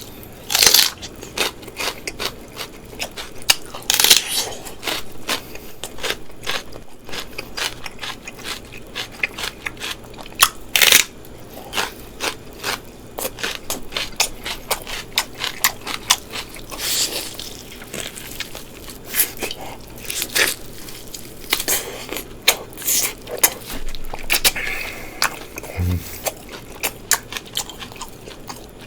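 Close-miked eating: chewing and wet mouth sounds, broken by sharp crunches and bites every few seconds.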